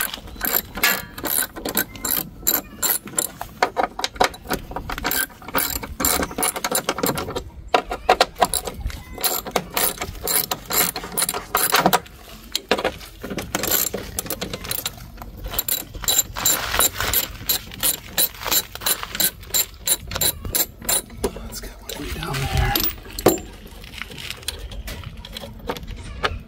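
Hand socket ratchet clicking in quick repeated runs as bolts are worked on a compact tractor's panel.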